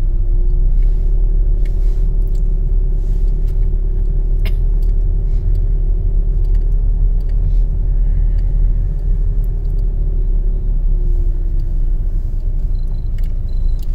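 Car interior while driving: a loud, steady low rumble from the tyres and engine, with an even hum that sinks and fades near the end. A single sharp click comes about four and a half seconds in.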